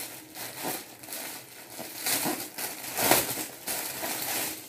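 Clear plastic packaging crinkling and rustling as a spare mop refill is handled inside its sealed bag, in irregular bursts with the loudest rustles about two and three seconds in.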